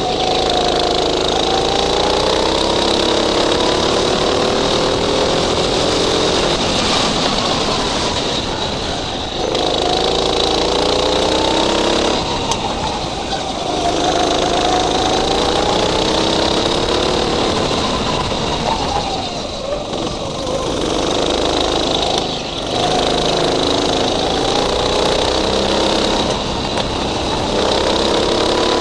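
Go-kart's small petrol engine heard from on board, revving up on the straights and dropping back into the corners several times over, with road and wind noise underneath.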